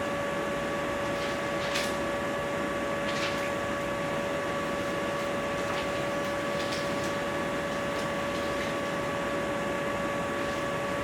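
A steady electrical whine with hiss in the recording, under short, scattered scratchy strokes of writing on a board.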